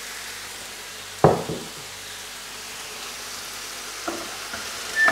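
Chicken and vegetables frying in a pan with a steady sizzle. One sharp knock sounds about a second in, and near the end a wooden spoon starts touching the pan with small clicks as stirring begins.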